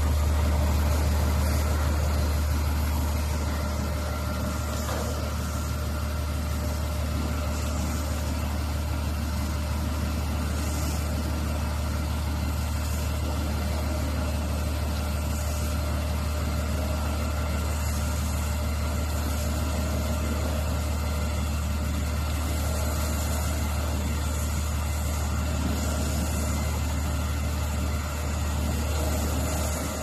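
Automatic gantry bus-washing machine running, its rotating brush working along the side of a coach, giving a steady low mechanical hum. The hum is a little louder for the first few seconds, then holds even.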